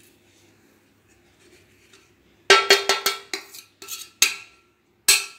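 A spoon clinking and knocking against a small metal bowl: a quick series of ringing clinks about two and a half seconds in, then one more near the end. It is the sound of powdered sugar and black pepper being tipped and scraped into the ghee in the bowl.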